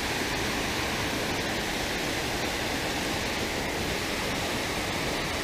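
Water rushing steadily down a concrete spillway and pouring over a step into the churning pool below.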